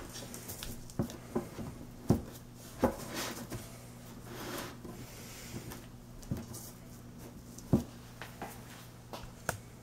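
Light knocks and taps of an IKEA Micke drawer's particleboard panels being handled and pressed together by hand as the back panel goes into the grooves. Scattered single knocks, with a soft sliding rub in the middle, over a faint steady hum.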